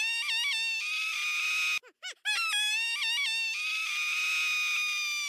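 Short electronic music jingle: quick pitch swoops, a run of stepped notes, then a long held note. It breaks off briefly near two seconds in and the phrase plays again, ending on a held note that slowly sinks.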